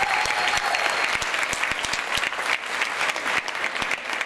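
Audience applauding, the clapping thinning out a little near the end.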